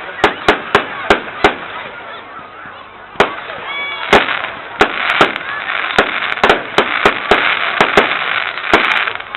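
Fireworks going off: sharp bangs, a quick run of about five in the first second and a half, then irregular bangs through the rest. A steady hiss of crackling between them grows denser about halfway.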